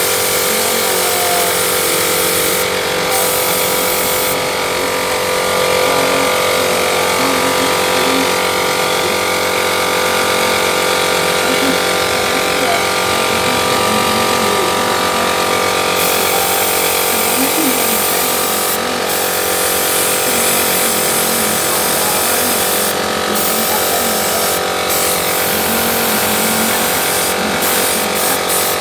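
Small air compressor running steadily with a motor hum of several steady tones, under the high hiss of an airbrush spraying paint. The hiss stops for a moment several times as the trigger is let off.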